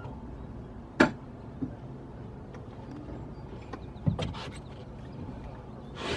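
Low, steady rumble of the tow vehicle backing the boat trailer down the ramp, with a sharp knock about a second in and a smaller one about four seconds in.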